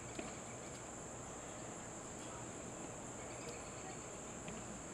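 Steady high-pitched insect chorus, an even unbroken trill of crickets or similar insects.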